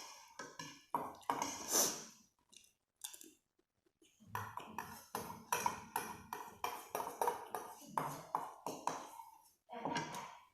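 Close-miked eating sounds: quick, irregular chewing and mouth noises, pausing for a moment about three seconds in.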